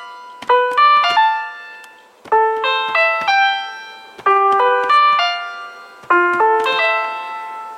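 Background music: short phrases of bright struck keyboard notes, each fading out, with a new phrase starting about every two seconds.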